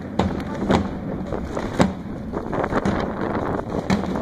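Outdoor flag-throwing display: big cloth flags swishing past the microphone over a steady rumble with wind on the microphone, and a few sharp cracks.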